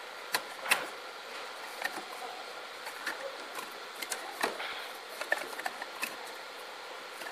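Scattered light knocks and clicks of hands working on a shower tray and its metal leg frame, the two sharpest within the first second, over a steady background hiss.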